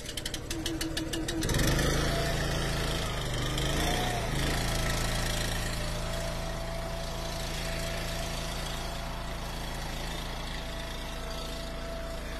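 Small gas engine of an Eastonmade Ultra log splitter being started: it cranks over with a quick run of even ticks for about a second and a half, catches, wavers in speed briefly around two to four seconds in, then settles into running steadily.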